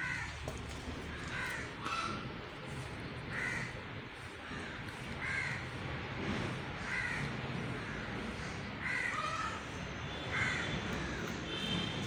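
A crow cawing over and over, about seven short caws spaced evenly about one every one and a half to two seconds, over a steady low rumble.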